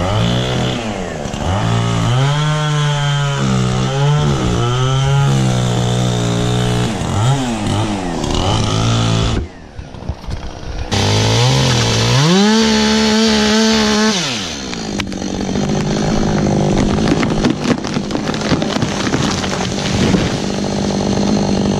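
Two-stroke chainsaw cutting wood, its engine pitch sagging and wavering under load and climbing again when freed. The sound drops out briefly around ten seconds in, then the saw runs steadily at high speed with scattered clicks.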